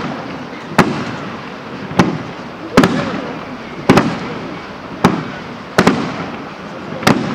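Professional fireworks display: a run of sharp bangs about one a second, seven in all, each trailing off in a rolling echo.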